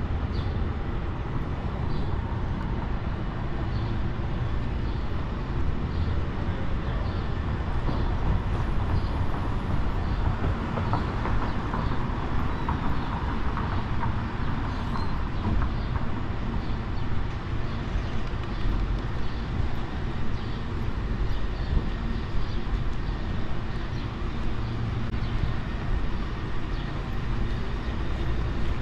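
City street traffic: a steady rumble of passing vehicles, swelling a little about a third of the way in as something heavier goes by.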